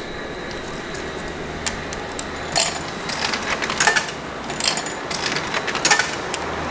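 Coins dropped one at a time into the coin slot of an old curry-rice vending machine, clinking down through the coin mechanism in a series of sharp clicks, over the steady noise of a nearby road.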